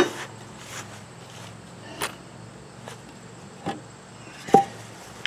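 A few short sharp knocks and clunks as a wooden block is handled against a steel mower deck, the loudest about four and a half seconds in with a brief ring, over a steady low hum.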